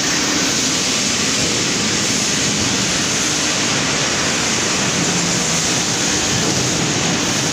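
Steady, loud, unbroken machinery noise of a scrap steel handling hall, with a faint low hum under it and no distinct clangs or impacts.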